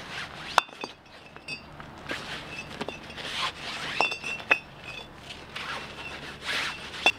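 Cored red clay bricks clinking sharply against each other as they are dropped one at a time into a microfiber pillowcase, a few distinct clinks with the cloth rustling between them.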